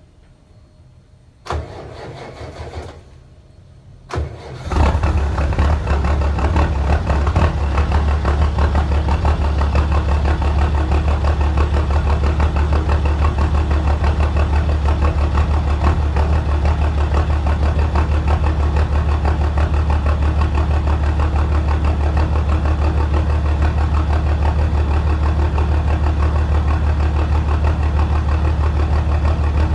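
Cold start of a 2001 GMC 3500 HD's MWM 4.2 six-cylinder turbo diesel through a straight-piped 3-inch exhaust: the engine cranks in two short goes and catches just under five seconds in. It then settles into a loud, steady idle with a deep pulsing exhaust note.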